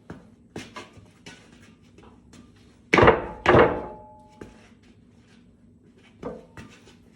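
Two loud metal clanks about half a second apart, about three seconds in, from heavy steel pieces being knocked or set down; the second one rings briefly. Lighter knocks and taps come before and after.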